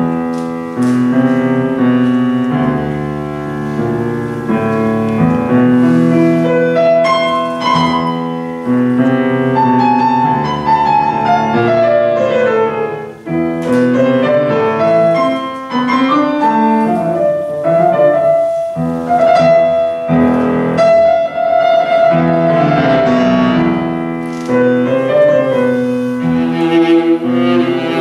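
Live chamber trio of viola, cello and piano playing a tango. For a stretch in the middle the viola rests, leaving cello and piano, and it comes back in near the end.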